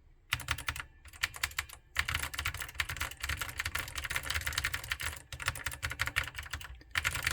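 Typing on an NEC APC-H410E vintage keyboard with NEC blue oval switches: smooth, soft clicky keystrokes, a few at first, then a fast, steady run with a couple of brief pauses.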